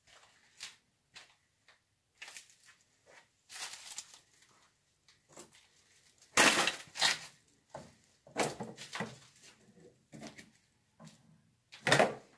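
Footsteps and shuffling on a debris-covered floor: irregular crunches and knocks, loudest about six and a half seconds in and again near the end.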